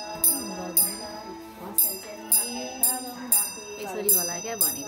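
Background music: a song with a steady beat of bright jingling percussion about twice a second, under a gliding melody line.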